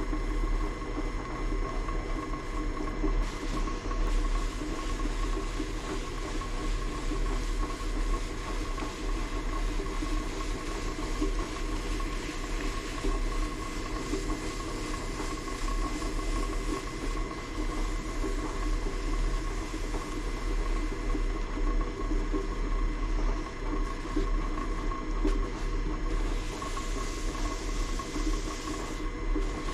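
Single-phase electric motor of an old South Bend lathe running steadily and spinning the bare pulleys with the belt off, a steady hum. Steel wool with WD-40 is held against the spinning pulleys to polish off rust, adding a scratchy hiss that grows brighter near the end.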